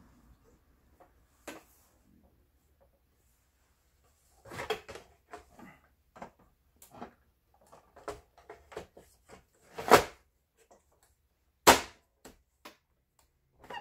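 Plastic housing of a Singer 7466 sewing machine being handled and fitted together: scattered clicks and knocks of plastic parts, with two sharper, louder knocks in the second half.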